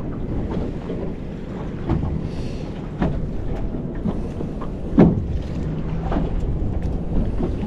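Wind and water lapping against a small boat's hull, with a few sharp knocks, the loudest about five seconds in.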